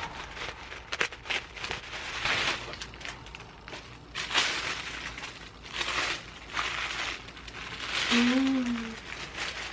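Packaging crinkling and rustling in irregular bursts as a handbag is unwrapped from its gift box.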